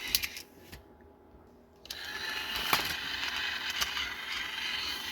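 A few clicks, a short pause, then the small electric motor and plastic gearbox of a battery-powered Trackmaster Rosie toy train start up about two seconds in and run with a steady whir, after a gear repair that leaves it running smoothly.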